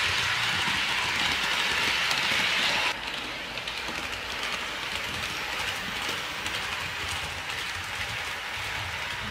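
HO scale model train running on sectional track: the model diesel locomotive and Gunderson Multi-Max autoracks rolling by, a steady rushing rattle of small metal wheels on rail. The noise drops abruptly about three seconds in and carries on softer.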